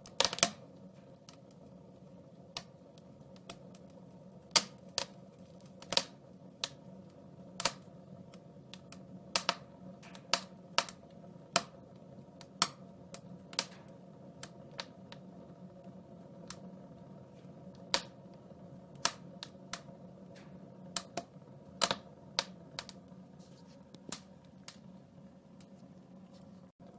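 Wood fire crackling in a fireplace: irregular sharp pops and snaps, some loud, over a steady low rush of the flames.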